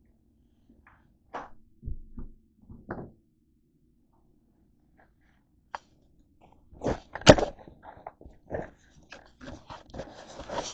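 Handling noise: a string of irregular knocks and thumps as a hand-held camera is carried and set down, the loudest knock about seven seconds in. Near the end, rustling and bumping of a fabric backpack being handled.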